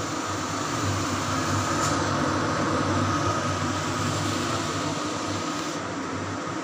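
Kitchen chimney (wall-mounted range hood) with its blower fan running: a steady rush of air with a low hum and a faint high whine, a little louder for a few seconds in the middle.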